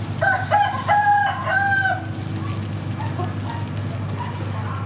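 A rooster crows once, a call of about four notes lasting about two seconds, the last note held longest. A steady low rumble runs underneath.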